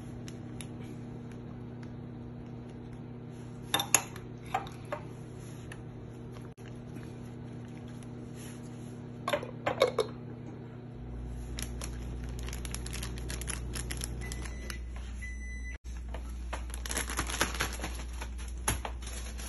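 Kitchen utensils clinking against bowls and dishes as seasonings are spooned in, a few separate clinks at first and then a busier run of light clicks and clinks near the end, over a steady low hum.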